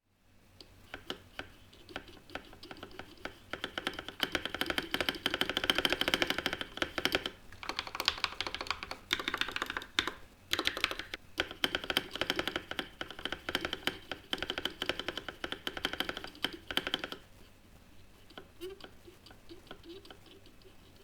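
Fast typing on a stock, unmodded TM680 mechanical keyboard with Akko Red Radiant linear switches and Akko 9009 keycaps: rapid runs of key clacks with a few short breaks, thinning to scattered keystrokes after about 17 seconds. The stock stabilizers sound bad and squeaky.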